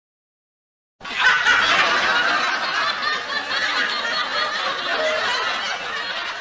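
Laughter from a group of voices, starting abruptly about a second in after a moment of dead silence and running on without a break until it cuts off sharply.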